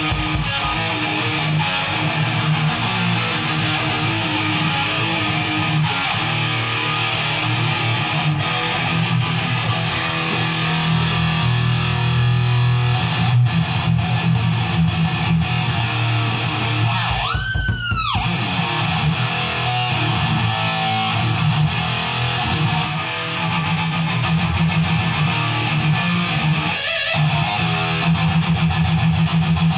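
Electric guitar playing loud and without a break, as in a band's sound check. About 18 seconds in, one note slides up and straight back down.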